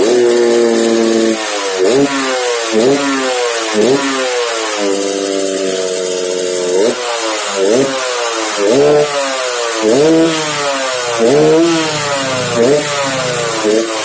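Yamaha RX-King two-stroke single-cylinder motorcycle engine revved in about ten quick throttle blips, each rising sharply and dropping back. The engine runs through a 'ngorok' exhaust, tuned for a snoring note.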